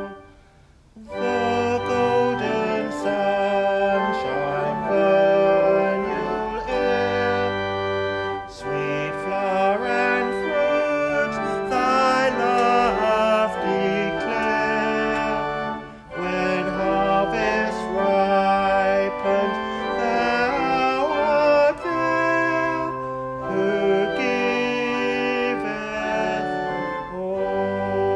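Organ playing a hymn tune in slow, sustained chords, with a short break about a second in before the music resumes.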